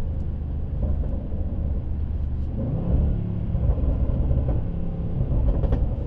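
Range Rover Sport SVR's supercharged V8 pulling under throttle, heard from inside the cabin, its rumble building about halfway through. Near the end come a few sharp exhaust crackles, which the driver calls straight up fake.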